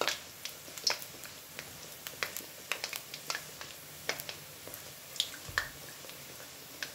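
Hot oil in a wok popping and crackling around a pandan cucur batter fritter as it deep-fries. Irregular sharp pops, a few a second, over a faint sizzle.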